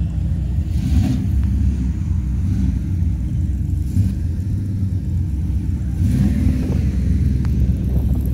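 A car engine running with a deep, steady rumble.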